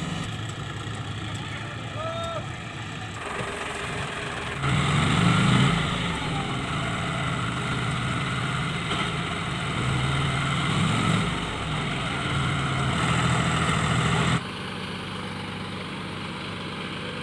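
Heavy tractor diesel engine running under load, revving up twice, about five seconds in and again about eleven seconds in, while straining to pull a loaded trolley out of mud. The sound changes abruptly a few times.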